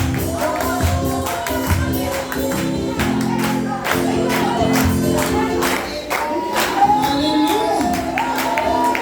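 Live gospel worship music: a congregation singing together over sustained keyboard and bass with a steady percussion beat.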